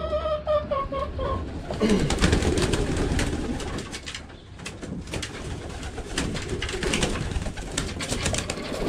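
Homing pigeons cooing in the loft, mixed with many short clicks and scuffs.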